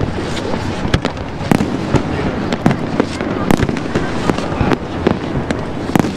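Aerial fireworks shells bursting in an irregular rapid series of sharp bangs and crackles, the loudest bangs about a second and a half and three and a half seconds in.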